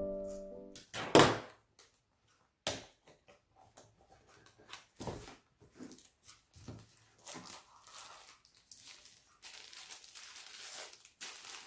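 A camera box and its wrapping being opened by hand: a sharp knock about a second in, then scattered clicks and scrapes of the packaging, and steady crinkling of the wrapping for the last couple of seconds.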